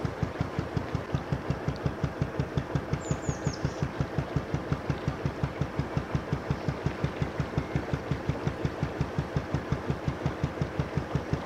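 Narrowboat's traditional Petter McLaren B2 diesel engine running under way at a slow, steady, even beat of low thumps.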